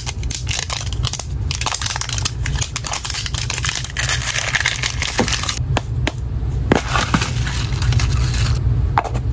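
Plastic wrap and sticker seal being peeled and torn off a plastic toy surprise ball: continuous crinkling and crackling, dotted with many sharp clicks, over a steady low rumble.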